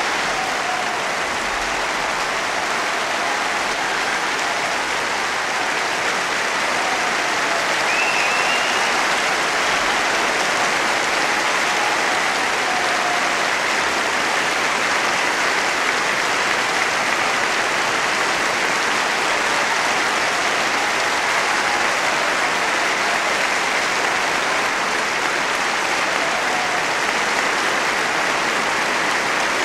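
Large concert-hall audience applauding steadily and densely in a long ovation at the close of a piano concerto, with a few faint calls rising over the clapping.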